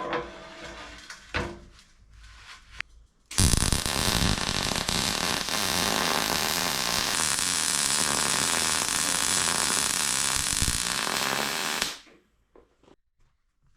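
Electric arc welder laying a continuous bead on thin steel. It starts about three seconds in, runs at an even level for roughly eight and a half seconds, and cuts off sharply. A few light knocks of metal being handled come before it.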